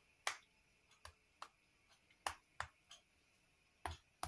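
About eight sharp, short clicks at uneven intervals as the casings of stuffed potato sausages are pricked, so they will not burst while scalding.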